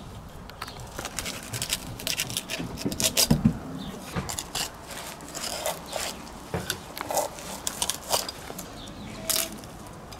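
A knife cutting into an albacore tuna: irregular crackling clicks and scrapes as the blade slices through skin and flesh, with sharper knocks against the wooden table.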